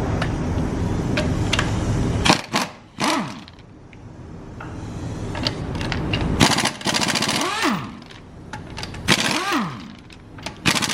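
A steady low running noise cuts off about two seconds in. Then an impact wrench hammers in short rattling bursts, about three of them, its motor whirring up and winding down around each burst, as on wheel lug nuts.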